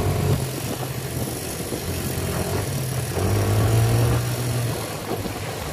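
ATV engine running under way, a steady low hum that grows a little louder about three seconds in, with an even hiss over it.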